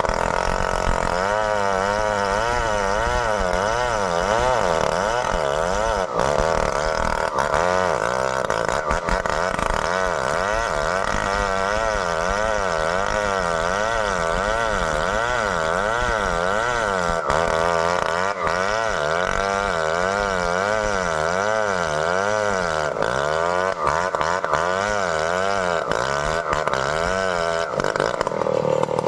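Stihl 070 two-stroke chainsaw cutting into a large merbau trunk. The engine pitch rises and falls in a slow, regular waver, about once a second, as the saw is worked through the cut. Near the end the pitch steadies.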